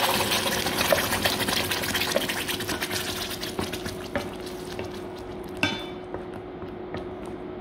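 Wet ground masala paste sizzling as it hits hot oil in a pan, a loud crackling sizzle that slowly dies down. About five and a half seconds in there is a single metallic clink.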